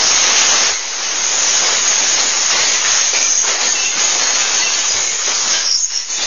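Glass wine bottles falling from a wall rack and smashing on a tile floor: a dense, continuous crash of breaking glass that eases off near the end.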